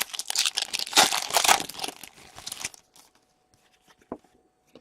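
Wrapper of an Upper Deck hockey card pack being torn open and crinkled, a dense crackle for the first two and a half seconds or so, then a few faint ticks of handling.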